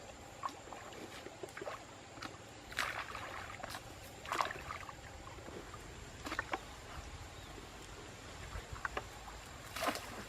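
Water splashing and sloshing in irregular bursts a couple of seconds apart, over a quiet steady background.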